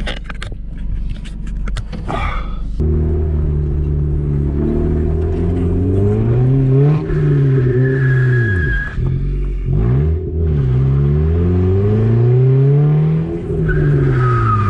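Car engine running, then from about three seconds in revving up and dropping back again and again, as in acceleration with gear changes. Some clicks come before the revving starts.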